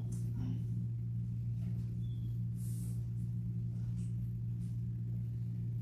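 A steady low hum holds throughout, with a few faint brief rustles of movement, one a little under halfway.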